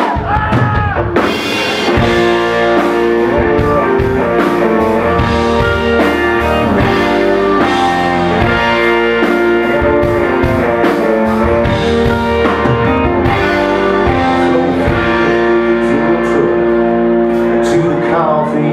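Live country band playing an instrumental intro on acoustic guitar, electric guitar, bass and drums, the full band coming in about a second in.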